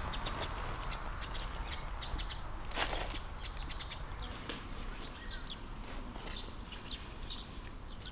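Small birds chirping in short, high calls scattered throughout, some sliding slightly down in pitch, over a faint outdoor hiss. One brief rustle about three seconds in is the loudest moment.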